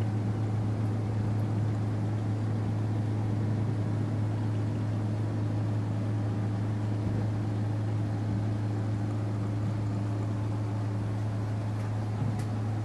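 Steady low hum with a faint hiss underneath, unchanging throughout, like a fan, ventilation or electrical hum in a room.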